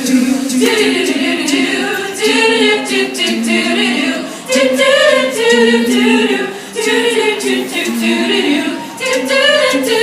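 All-female a cappella group singing wordless harmonized backing parts, phrase by phrase, with no instruments.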